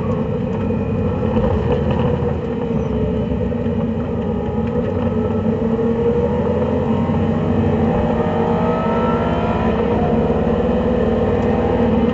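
A track car's engine heard from inside the cabin at circuit speed. It eases as the car slows for a corner, then rises steadily in pitch through the second half as the car accelerates again.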